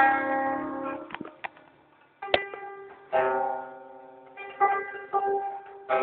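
Guzheng being plucked in a slow phrase: single notes and short groups ring out and fade away, with a brief pause about two seconds in before a sharp pluck starts the playing again.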